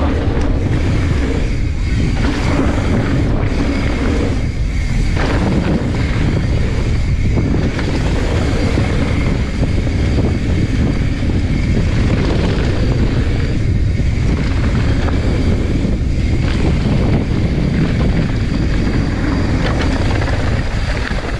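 A mountain bike descending a rocky dirt trail at speed: wind rushing on the microphone, mixed with tyre roll and the bike's rattle, loud and steady throughout, with a few sharper clatters.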